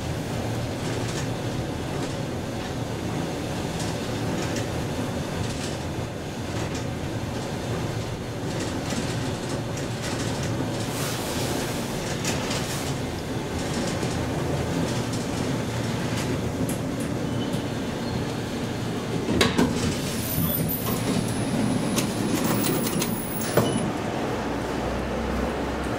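1977 KONE inclined elevator cab travelling up its sloping track: a steady mechanical rumble of the running cab. In the last several seconds come a few sharp knocks and clacks and, briefly, a thin high whine.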